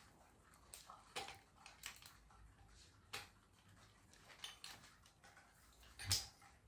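Faint, scattered clicks and taps of small parts being handled as a 3D-printed plastic quick-release plate, its washers and screw are fitted together, with a louder knock about six seconds in.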